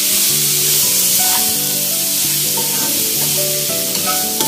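Grated beetroot frying in hot oil in a kadai, a steady sizzling hiss, while a spatula stirs it around the pan.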